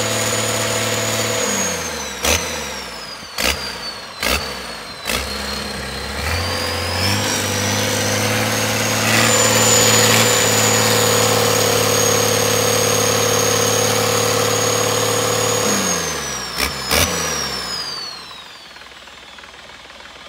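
Cummins diesel engine on a test run. It slows down with several sharp bangs, then speeds back up and runs steadily at higher revs with a high whine that follows engine speed. Near the end it is throttled back, bangs twice more and winds down to a stop.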